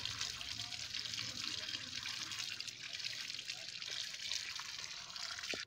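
Running water pouring in a steady stream onto freshly cut potato sticks in a plastic basket as a hand rubs them: rinsing raw french fries. A steady splashing hiss that cuts off suddenly at the end.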